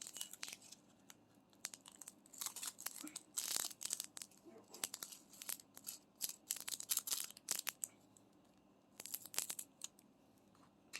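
Small plastic bag of diamond-painting drills crinkling and being torn open by hand, in short bursts of rustling with light clicks.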